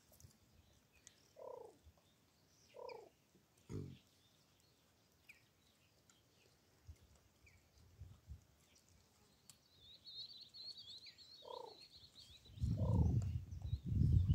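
Short falling animal calls, twice in quick pairs, over an otherwise quiet outdoor background, with a brief high warbling call around ten seconds in. Near the end a loud low rumble sets in.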